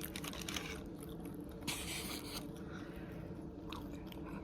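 Chewing and biting of food close to the microphone, with many small mouth clicks and a short crunchy patch about two seconds in.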